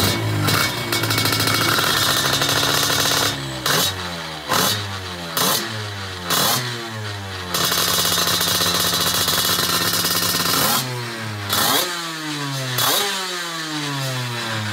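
Casa Performance twin-cylinder 250 cc Lambretta two-stroke engine with 2LTech exhausts being revved. The throttle is blipped again and again, each rev climbing quickly and falling back to idle, and it is held at a steady higher rev for about three seconds in the middle.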